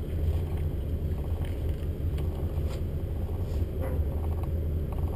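Cabin cruiser's inboard engines running slowly, a steady low rumble, with a few faint knocks on the boat.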